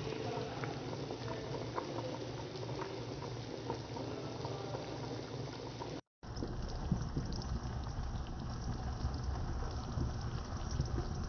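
7 Up simmering around a whole chicken in a pot, the liquid bubbling with many small pops. It drops out for a moment about six seconds in and returns with a low rumble underneath.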